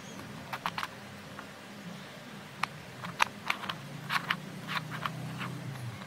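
Plastic 3x3 Rubik's cube being twisted by hand, its layers clicking and clacking as they turn. A few clicks come just under a second in, then a quicker run of turns from about two and a half seconds to five and a half.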